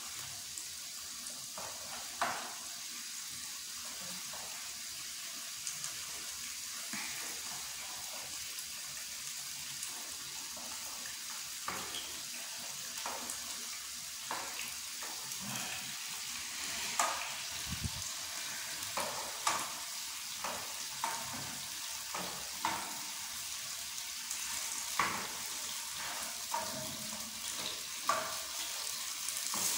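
Beef pieces sizzling in a frying pan with a steady hiss, with a spatula clicking and scraping against the pan every few seconds as they are stirred.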